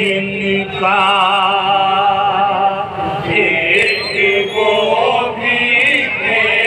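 A group of men chanting an Urdu devotional kalam in unison with no instruments, holding long wavering notes, with a brief break about three seconds in.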